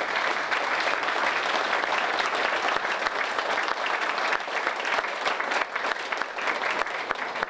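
A roomful of people applauding, many hands clapping in a dense, steady patter that eases slightly near the end.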